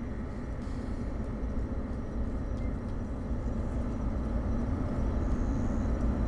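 Falcon 9 first stage's nine Merlin engines heard as a steady low rumble during the climb off the pad, growing slightly louder.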